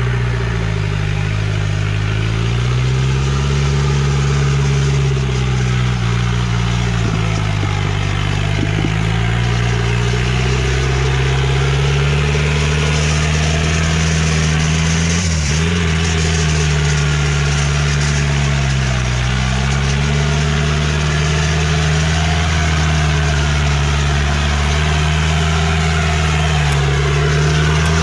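Off-road 4x4's engine revving under load in deep mud, held at high revs with its pitch dipping and recovering several times.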